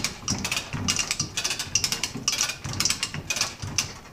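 Yale ¾-ton ratcheting chain hoist being worked to lift an outboard powerhead: a string of irregular metallic ratchet clicks and chain clinks, several a second.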